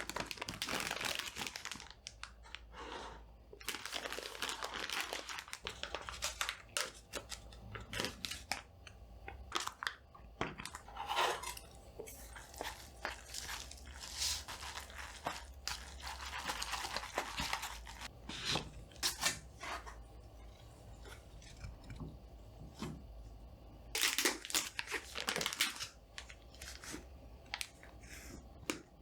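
Plastic food packaging being torn open and crinkled, with crunching, in irregular bursts and clicks. A faint steady hum, which the uploader blames on a newly bought light, runs underneath.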